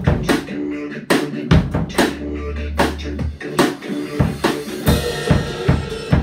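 Acoustic drum kit played in time with a pop song's backing track: a steady beat of bass drum and snare hits, with cymbals washing in over the second half.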